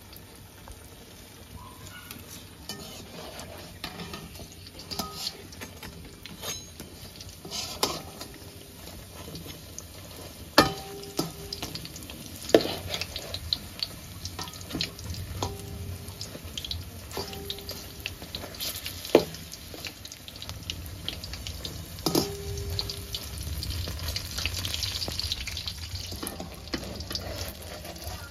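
Cooking sounds: a metal spoon stirring and scraping in a steel vessel, with four sharp ringing taps of the spoon against the metal spread through the stretch.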